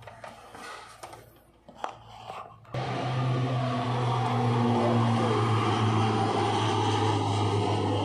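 A few light knocks and rustles of the seat belt being handled, then, about three seconds in, a loud steady mechanical hum starts abruptly and runs on.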